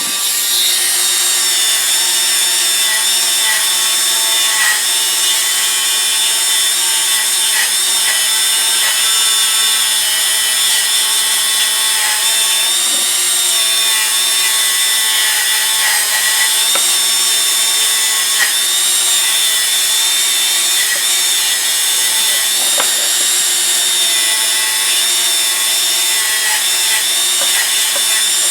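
A power tool's spinning brush or wheel working against the metal of a pair of pliers to clean them, running steadily: a continuous harsh hiss over a motor hum.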